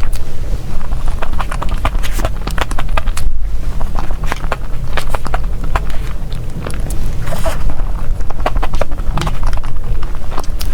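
Close-miked eating of a dessert: chewing and wet mouth sounds made up of rapid, irregular clicks and crackles, with a brief pause about three seconds in.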